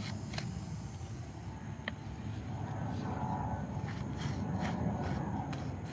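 Soft paintbrush stroking and dabbing paint onto a concrete flower pot, a few quick strokes a second in the second half, over a low steady rumble.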